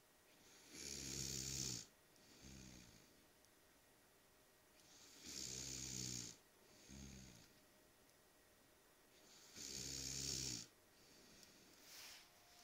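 Snoring: three loud snores about four seconds apart, each lasting about a second and followed by a shorter, softer sound.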